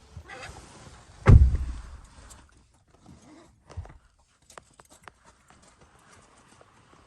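A single heavy thump about a second in, dying away quickly, followed by a few scattered light clicks and taps.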